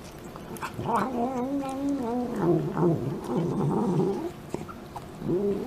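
Cat making the murmuring 'nom nom nom' vocal sounds that cats make while eating: one long drawn-out wavering call, then a quick run of rising-and-falling calls, and a short call near the end.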